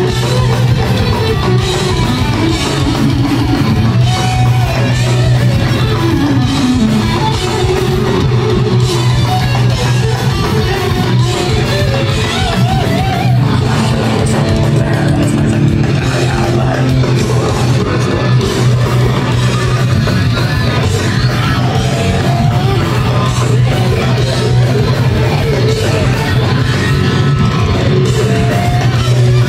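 Death metal band playing live at full volume, with distorted electric guitars, bass and drum kit, recorded on a phone in the crowd.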